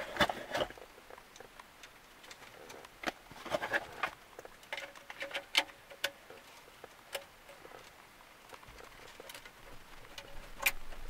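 Scattered clicks, knocks and scrapes as a car radio head unit's metal case and its plastic connectors are handled and slid into the dashboard slot, with brief rustling of cables.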